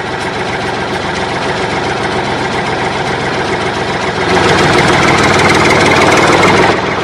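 Tractor engine idling with a steady chugging run, getting louder about four seconds in.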